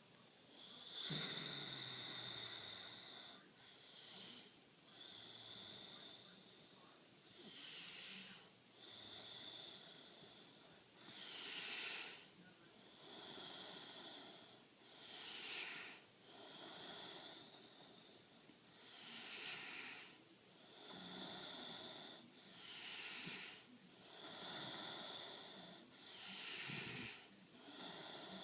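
A young girl snoring in her sleep, slow and regular, about one full breath every three to four seconds. Each breath alternates a whistling, wheezy sound with a breathier one.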